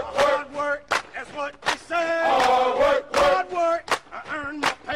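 Men's voices chanting a military marching cadence in short sung phrases, some notes held.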